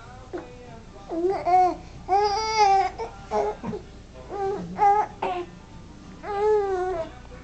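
Baby on his tummy making a string of drawn-out, fussy whining sounds, about six in a row with short pauses between, each bending up and down in pitch.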